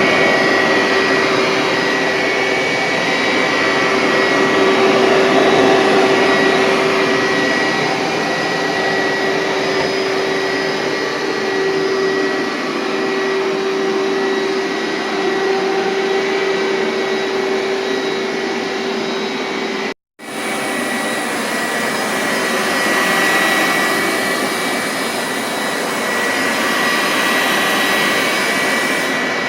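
1999 Hoover SteamVac Widepath carpet cleaner running steadily, a loud suction-motor drone with a steady whine. The sound cuts out for an instant about two-thirds of the way through, then resumes.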